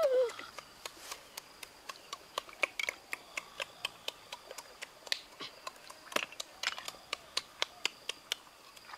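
Irregular small clicks and taps, several a second, of cooked snail shells being handled and picked at for their meat.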